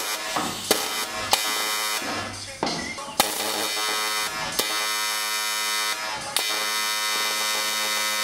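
Electric welding arc buzzing as a crack in an aluminium engine oil pan is welded shut. It is struck in short starts over the first three seconds, then held in one long steady run.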